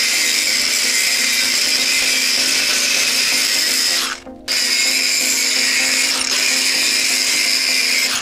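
Angle grinder grinding the steel differential mounting ring of an axle casing, taking back the welded-up stud holes to enlarge the ring. It runs steadily, cuts out for about half a second near the middle, then starts grinding again.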